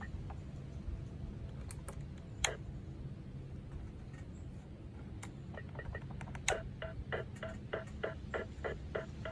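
Circuit-bent Protech toy keyboard glitching through its speaker: a few scattered clicks, then, from about two-thirds in, a steady ticking of short blips at about four a second.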